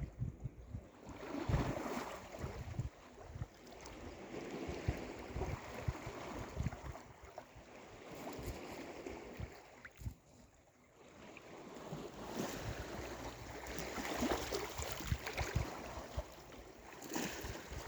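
Sea waves breaking and washing up the shore in slow swells that build and fade, easing briefly about ten seconds in. Wind buffets the microphone with low thuds throughout.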